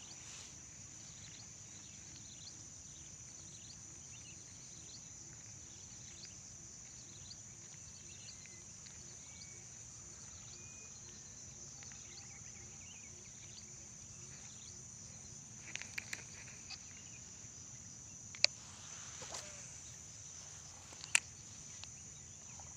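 Faint, steady chorus of insects with a few short bird chirps. Several sharp clicks come near the end.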